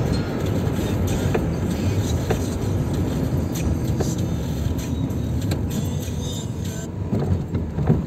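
Steady road and engine noise of a car driving slowly through town, heard from inside the cabin.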